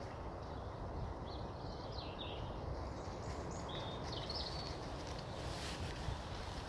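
Steady low rumble of wind on the microphone, with a few short bird chirps about a second in and again around four seconds in.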